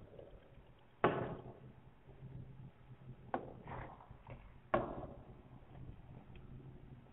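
Taps and knocks on an interactive whiteboard's touch screen as tools are selected and drawing begins: three sharp knocks, about a second in, halfway through and just after, each ringing briefly in the room, with a few faint ticks between, over a low steady hum.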